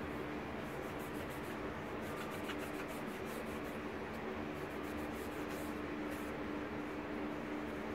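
Cloth rag wiping and rubbing along a steel knife blade: faint scratchy swishes over a steady low hum.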